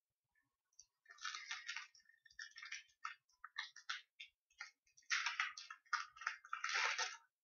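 Foil Magic: The Gathering booster pack wrapper crinkling as it is handled and torn open, in irregular crackly bursts that start about a second in and are densest near the end.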